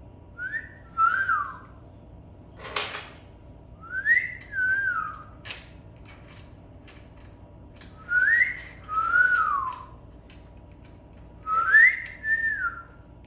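A man whistling a tune: four similar short phrases, each rising then falling in pitch, repeated about every four seconds. A single sharp clack sounds about three seconds in.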